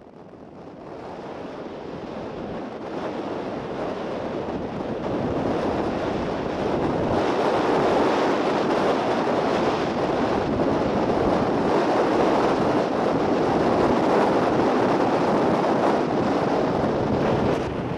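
Steady rushing wind and road noise on the microphone of a camera filming from a moving vehicle. It fades in over the first few seconds and dips slightly near the end.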